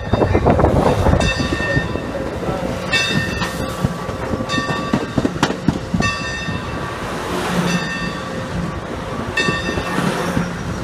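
Bi-level Amtrak Pacific Surfliner passenger cars rolling past close by, with a steady rumble and repeated clacking of wheels over the rail. It is loudest in the first second, and stretches of high-pitched tone come and go every few seconds over the rumble.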